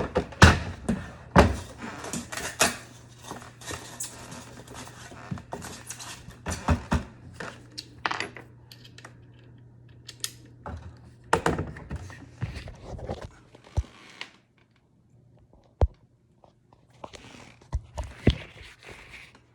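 Irregular knocks, clicks and small metallic clatters from parts and hand tools being handled while a GE dishwasher's control panel is taken apart, with a brief lull about three-quarters of the way through.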